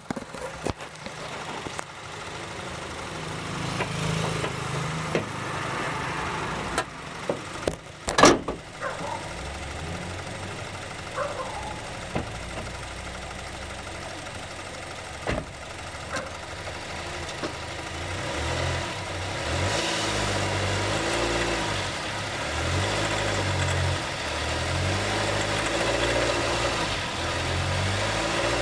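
Honda City engine running. Several sharp knocks come in the first ten seconds, the loudest about eight seconds in. In the second half the engine speed rises and falls. The owner says the engine makes a noise that has grown over the mileage, which the dealer put down to the fuel.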